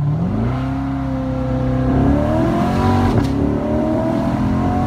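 2016 Corvette Stingray's 6.2-litre V8 accelerating hard from a standing start: the revs sweep up, then climb in steps through a couple of upshifts. The rear tyres have no traction throughout, on only about a quarter of the pedal.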